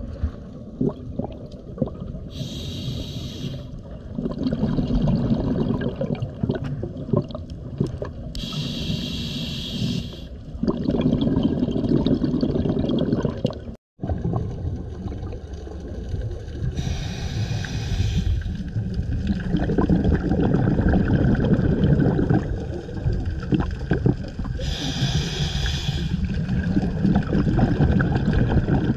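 Scuba diver breathing through a regulator underwater. A hissing inhale comes four times, about every six to eight seconds, and each is followed by a long bubbling exhale. The sound cuts out for an instant about halfway through.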